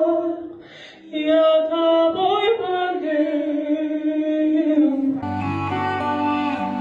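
A man singing a slow Russian ballad into a microphone, holding long notes over a light keyboard accompaniment. About five seconds in, the song gives way to slow string music with low, sustained notes.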